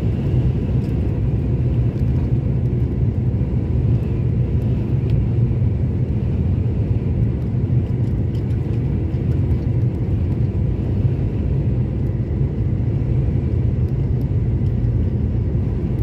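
Vehicle driving steadily at highway speed, a constant low engine and road rumble heard from inside the cab.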